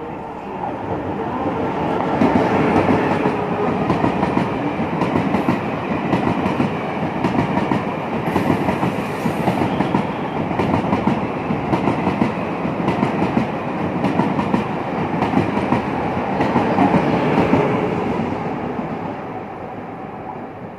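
Taiwan Railway E1000 push-pull Tze-Chiang express train passing through a station without stopping: a continuous rumble with wheels clacking rapidly over the rail joints. It grows louder about two seconds in and fades near the end as the last car goes by.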